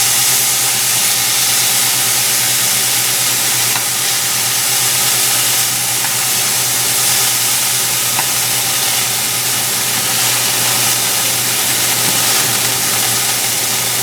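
Thin slices of venison tenderloin searing in hot olive oil in a pan: a steady, loud sizzle, with a steady low hum underneath.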